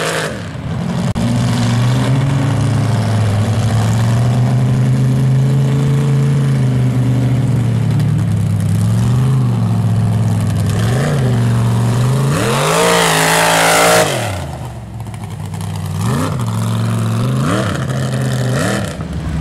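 Mud truck engine running hard through a mud pit, revving up and down under throttle. About two-thirds of the way through, one long climbing rev cuts off suddenly, followed by several short revs.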